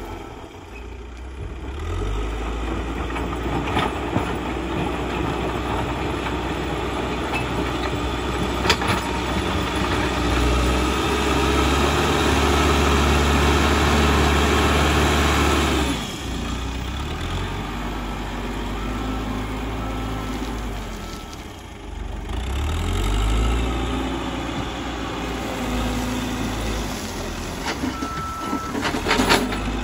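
Caterpillar 434E backhoe loader's diesel engine working under load while pushing soil with its front bucket. It rises to its loudest for several seconds about a third of the way in, drops off, dips briefly a little past the middle and then picks up again. A few sharp knocks come near the end as the raised bucket tips its load.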